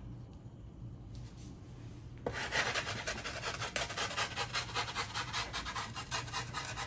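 Wooden pizza peel scraping and rasping against the baking steel and wire rack of a home oven as the pizza is jiggled off onto the steel, starting about two seconds in as a rapid run of rough strokes.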